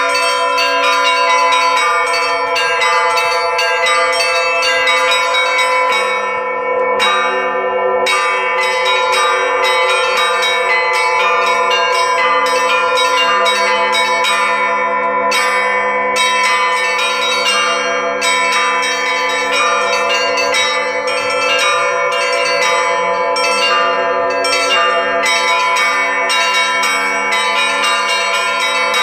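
A set of Russian church bells from the LITEX foundry, rung together by a bell-ringer: small bells strike quickly over the ringing of the larger bells. Deeper bells join about six seconds in.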